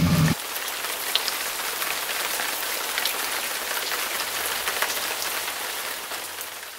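Steady rain falling on a surface, an even hiss dotted with the ticks of single drops, fading out at the end. A moment in, a low traffic hum cuts off abruptly and the rain is left alone.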